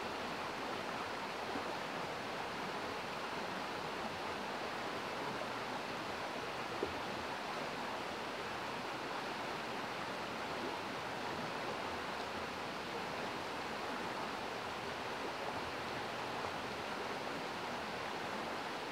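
Steady rushing and burbling of a rocky stream's riffle and small cascade, with one brief click about seven seconds in.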